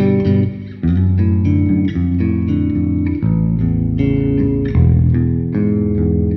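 Squier Bass VI, a six-string electric bass tuned an octave below a guitar, played with all three pickups switched on: picked notes and chords ring into one another in a slow, changing line.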